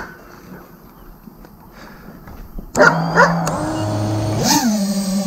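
Brushless motors of a 5-inch FPV quadcopter (F60 Pro 1950kv with T-Motor props) starting up on the ground: steady humming tones that step through pitches, then a quick jump up in pitch about a second and a half later that settles into an even idle whine. Just before the motors start, a couple of short sharp yelps.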